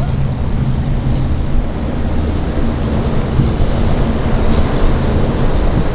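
Apache 47 offshore powerboat's engines running at a steady drone as the boat cuts through breaking waves, with surf and wind on the microphone mixed in.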